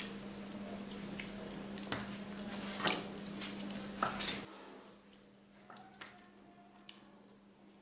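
Eating sounds: wet chewing of curried chicken with sharp clicks, growing quieter about halfway through as the fingers work rice on a steel plate. A steady low hum runs underneath.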